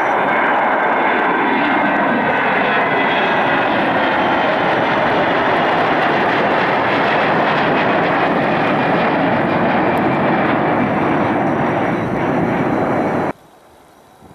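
Twin-engine Airbus A320-family jet airliner climbing out after takeoff, its engines at takeoff thrust. The jet noise is loud and steady, with a slow sweeping, phasing quality as it passes overhead, and cuts off suddenly near the end.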